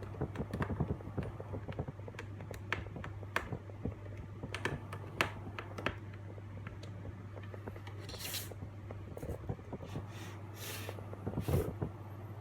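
Scattered light clicks and a few brief rustles of handling, over a steady low hum.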